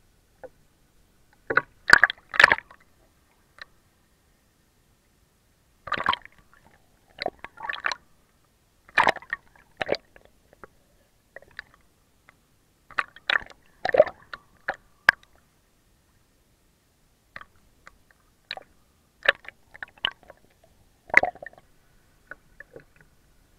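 Seawater splashing and sloshing against the camera in short, irregular bursts as a swimmer moves through small waves, with near silence between the splashes.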